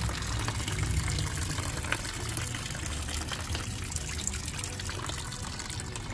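Engine coolant trickling steadily out of a BMW N20's cooling system into a catch container, with a low rumble underneath.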